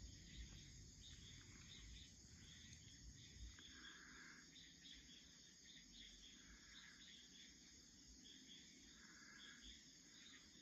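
Faint evening chorus of crickets and other insects: a steady high trill with irregular chirping over it, and a lower call coming back every two to three seconds. A soft low rumble fades out about three seconds in.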